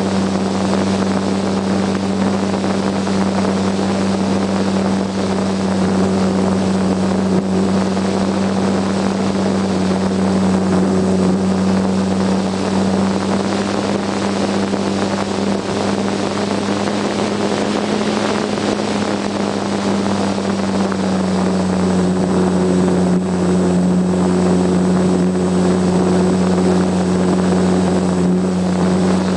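Brushless direct-drive electric motor and propeller of a GWS Slow Stick RC plane in flight, heard from a camera mounted on the plane: a steady drone over a rushing hiss.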